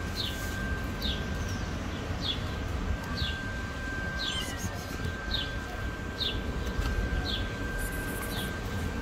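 A bird calling over and over, a short high chirp falling in pitch about once a second, over a steady low outdoor rumble and a faint steady high tone.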